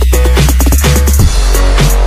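Background electronic music with a heavy, sustained bass and a steady drum beat.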